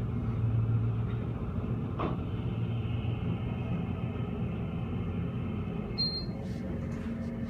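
KONE KSS220 scenic hydraulic elevator car travelling, with the hydraulic drive giving a steady low hum. A short high beep sounds about six seconds in.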